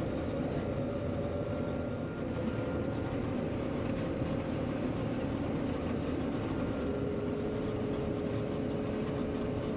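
John Deere 9500 combine running under load while harvesting soybeans: a steady machine drone with a faint whine.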